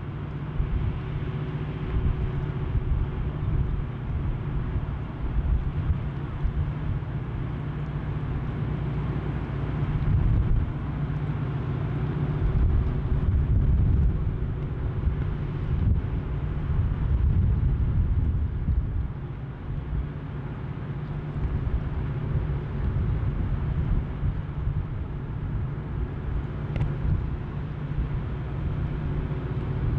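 Steady low drone of a ship's engine and machinery, with a constant deep hum and wind rushing over the microphone.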